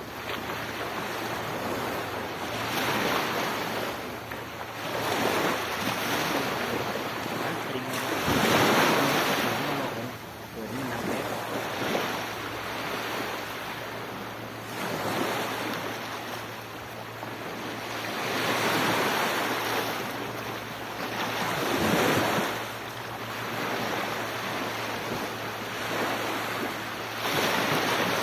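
Sea waves breaking and washing up the shore, the surf swelling and fading every few seconds.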